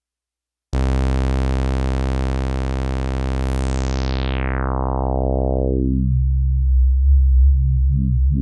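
Nord Stage synth patch in the style of a Mopho: after a brief silence, a held, buzzy bass-heavy note sounds, and its filter closes so it darkens over a couple of seconds. It then breaks into quick repeating filter pulses that grow brighter near the end.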